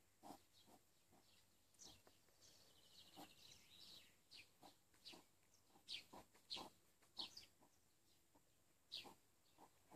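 A hedgehog chewing its food in a dish: faint, irregular short crunches and clicks, about two a second.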